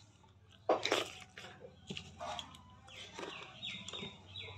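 Animal calls: a short run of repeated calls, each falling in pitch, near the end, with a louder sudden sound about a second in.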